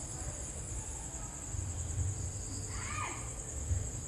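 Steady high-pitched drone of insects, likely crickets or cicadas, over a low rumble. About three seconds in comes one short squeak that falls in pitch.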